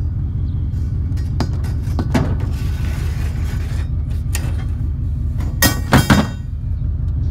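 Hard clanks and rattles of scrap being handled or shifting, a few single knocks and then a loud cluster of clanks near the end, over the steady low rumble of a running vehicle.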